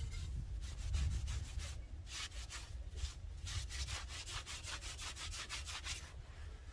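Rubbing and scrubbing the surface of a freshly fired clay pot in quick, rhythmic scraping strokes, several a second, working off the rough crust left by the firing to uncover the painted design.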